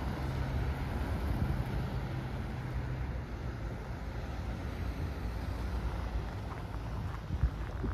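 Street traffic passing: a steady rumble of car engines and tyres, with a low engine hum that fades out about three seconds in. There is a short knock near the end.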